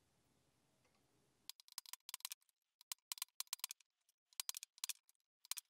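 Light metallic hammer taps driving a pivot pin into the clutch pedal of a Porsche G50 pedal cluster. The taps come in several short bursts of quick strokes, starting about a second and a half in.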